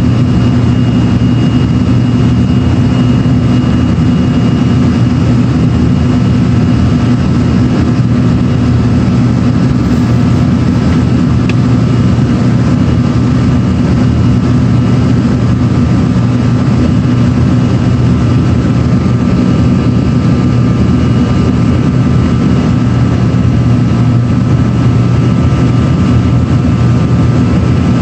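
Steady cabin noise of an Embraer regional jet's rear-mounted turbofans during the climb after takeoff, heard from inside the cabin: an even low drone with a faint high whine running through it.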